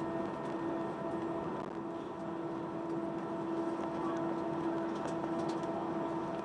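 Steady cabin noise inside an Airbus A320 taxiing to the gate: an even rush with a constant hum under it.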